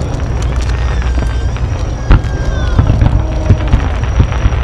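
Aerial fireworks: a steady low rumble with a string of sharp bangs from shells bursting, the loudest about two seconds in.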